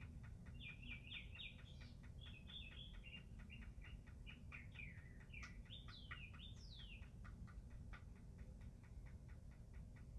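Faint birdsong: an even run of short chirps at about four or five a second, with quick rising and falling chirps near the start and again from about five to seven seconds in, over a low steady rumble.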